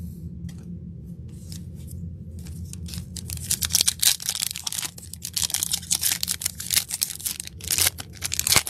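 Plastic wrapper of a basketball trading card pack being torn open and crinkled. Sparse crackles for the first few seconds, then a dense run of crackling tears and crinkles from about three seconds in, over a low steady hum.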